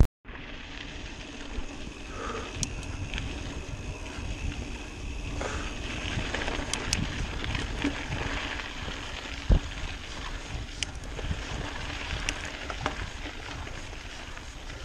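Mountain bike riding a dirt singletrack: tyres rolling over the trail, wind on the microphone, and the odd knock and rattle from the bike, with one louder thump about nine and a half seconds in.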